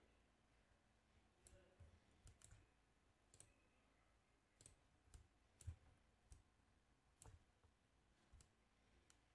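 Faint computer mouse clicks, about a dozen short ones at irregular intervals, over near silence.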